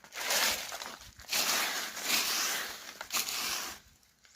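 Loud rustling, crackling noise in two long spells, with a short break about a second in.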